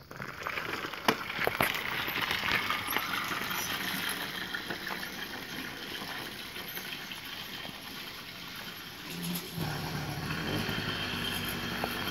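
Small engine of a kit-built motorized bicycle catching as the bike is pedaled off, then running steadily as it rides away.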